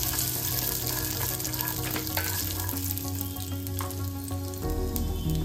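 Peanuts frying in oil in a pan on a low flame: a steady sizzle full of small crackles.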